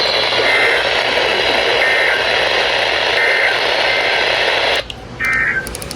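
NOAA Weather Radio broadcast heard through heavy static hiss, with short warbling SAME digital data bursts, about three of them roughly a second and a half apart, the end-of-message code after a warning. The audio cuts out sharply about five seconds in, and another data burst sounds near the end.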